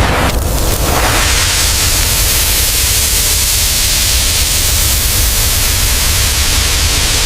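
Loud, steady rushing hiss over a deep rumble.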